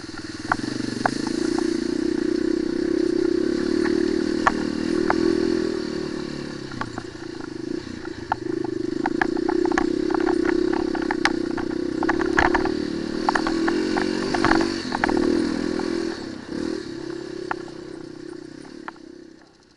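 Single-cylinder four-stroke enduro motorcycle engine running steadily under throttle on a rough, rocky dirt track, with frequent sharp clicks and clatter of loose stones, thickest in the middle. The engine dies down near the end.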